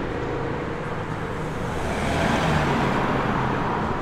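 City street traffic: a steady rumble of engines and tyres, with one vehicle passing close and growing louder about halfway through.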